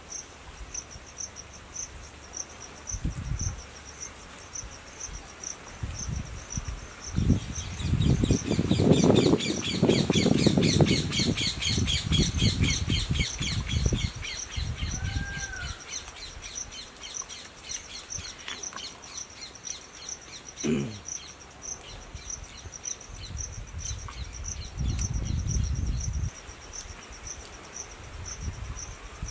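An insect chirping in steady, even pulses, with a fast high trill for several seconds and a bird's short call about halfway through. The loudest sound is a low rustling and squelching from about a quarter to half way in, as rice and gravy are mixed by hand on a banana leaf.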